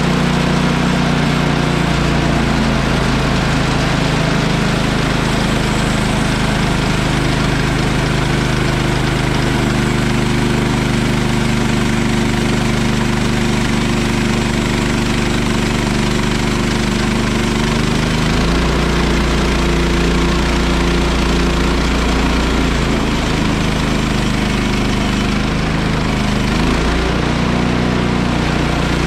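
Kohler engine of a Woodland Mills HM130MAX bandsaw mill running steadily while the band blade cuts through a log, its engine note shifting a couple of times.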